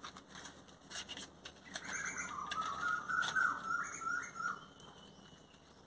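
A bird calling in the background: one wavering, whistle-like call lasting about three seconds, with a few sharp clicks before it.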